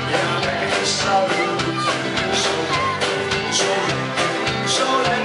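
Live pop-rock song from a stage band: a singer on a microphone over electric guitar and a steady beat.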